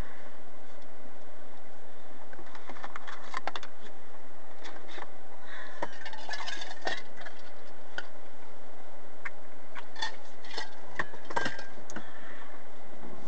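Irregular clicks and rattles inside a slowly moving vehicle's cabin, over a faint steady low hum from the vehicle.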